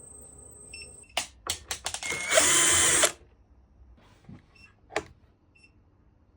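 Electric scooter beeping: short, high double-pitched beeps about once a second, the unexplained fault beep that its controller gives without showing an error. About a second in, a steady high whine stops. Clicks and knocks follow, then a loud burst of about a second from a power drill or driver. The beeps resume near the end.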